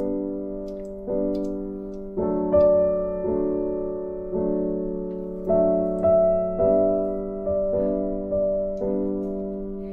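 Background music: slow struck chords on a keyboard, each left to ring and fade, with a new chord about once a second.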